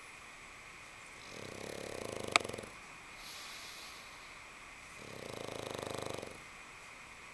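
Pug snoring in its sleep: two long, swelling snores about three and a half seconds apart, with a softer breath after the first. A single sharp click near the end of the first snore is the loudest sound.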